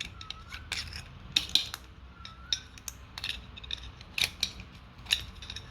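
Metal tool clinking and scraping against a brass water meter body as its plastic insides are knocked and pushed out: a string of irregular sharp metallic clicks and taps.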